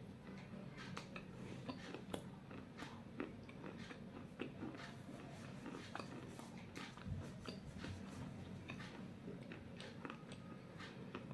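Close-up crunching and chewing of pieces of a baked clay bowl: irregular crisp cracks and crackles, a few every second, as the brittle clay is bitten and ground between the teeth.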